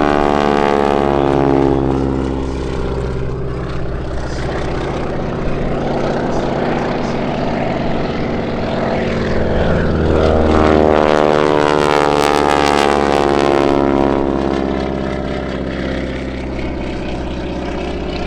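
Propeller aircraft engine droning as the plane flies past, with a sweeping, whooshing change in tone; it is loudest about ten to fourteen seconds in.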